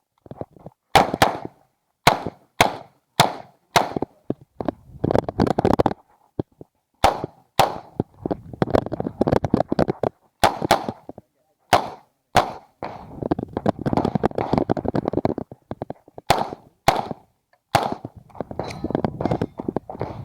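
Uzi Pro 9mm pistol fired in a string of shots, mostly quick pairs with short pauses between them as the shooter moves through the stage, beginning about a second in.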